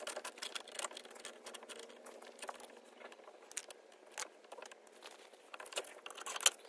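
Many small, sharp clicks and scrapes of hand tools handling an armoured cable and its fitting. A faint steady hum stops about three seconds in.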